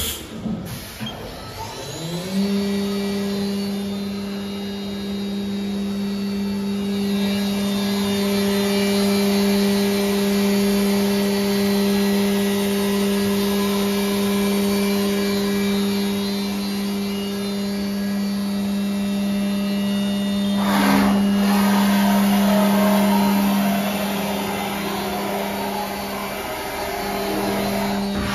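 Haas VM-6 vertical machining centre's spindle motor spinning up about two seconds in, rising in pitch and then holding a steady hum. A brief rush of noise comes about three-quarters of the way through.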